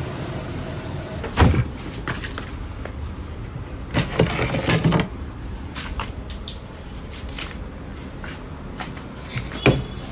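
Kitchenware being handled while chocolate is set to melt over water: a few knocks and clatters of a bowl and utensils, one about a second in, a cluster a few seconds later and more near the end, over a steady background hiss.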